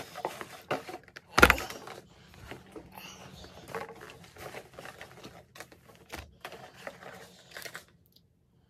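Rustling and clicking of packaging and crinkle-paper filler as items are handled in a cardboard subscription box, with one loud thump about a second and a half in. The sound cuts off near the end.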